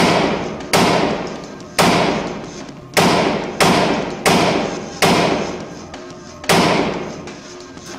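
AK-47 rifle fired in single shots, eight in all, at uneven gaps of about half a second to a second and a half. Each shot is loud and rings out in the echo of the indoor range.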